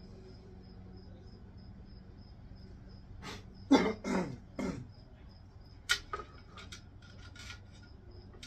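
A cricket chirps faintly and steadily, about three chirps a second. About three and a half seconds in come three short, loud bursts that fall in pitch, and from about six seconds a sharp click followed by lighter clicks of small wiring parts being handled.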